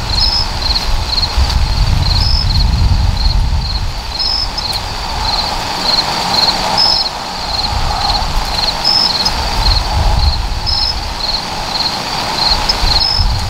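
Crickets chirping steadily in an even rhythm, about three chirps a second, with a second, higher chirp every couple of seconds, over a loud, uneven low rumble.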